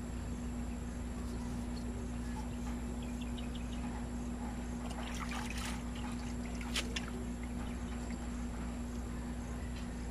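Faint rag sounds on a rear drum-brake backing plate, then a rag dipped and swished in a bucket of cleaning liquid, with small splashy clicks about five to seven seconds in, over a steady low background hum.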